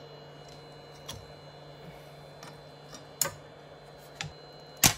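Sharp clicks and knocks of a glass build plate being handled and lifted off a 3D printer's bed, about five in all, the loudest near the end, over the steady hum of the printer running.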